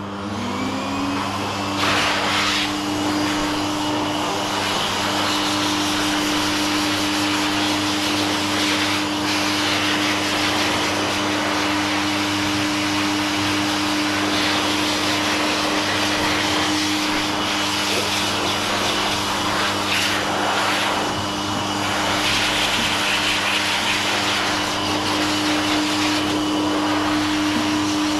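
Dog grooming blow dryer with a hose switched on. Its motor whine rises to speed in about the first second, then runs steadily with a loud rush of air as the nozzle is worked over a small bichon frise's body.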